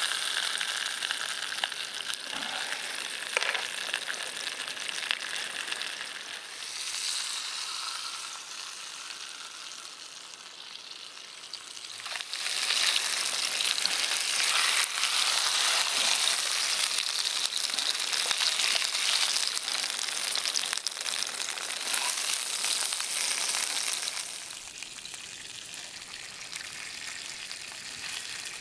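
Arctic grayling frying in a pan on a gas camp stove: a steady sizzle that grows stronger about halfway through, then drops back near the end.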